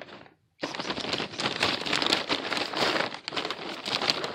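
Food packaging being handled: paper or plastic wrapping crinkling and rustling in a dense crackle, starting abruptly about half a second in.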